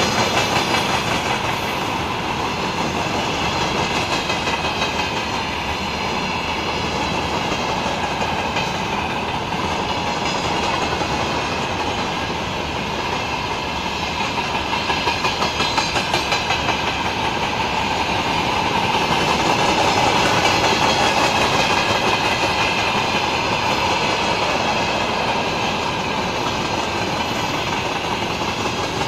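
Freight train hauled by a VL11 electric locomotive rolling past, its wagon wheels clicking over the rail joints in a continuous clickety-clack, with a run of louder wheel clicks about halfway through.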